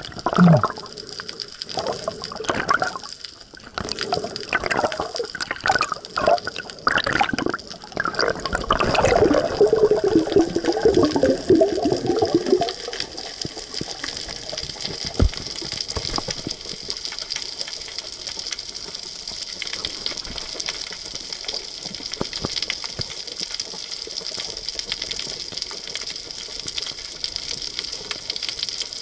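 Water sloshing and gurgling around a camera held underwater. Irregular bursts of bubbling and gurgling fill the first dozen seconds, then settle into a steadier watery hiss.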